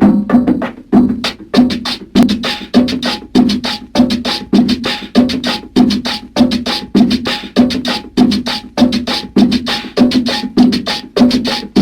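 Cumbia music intro played on percussion alone: a steady beat of sharp wood-block-like and drum hits.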